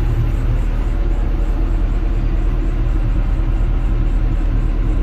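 Kobelco SK200-10 excavator's diesel engine running with a steady, even hum.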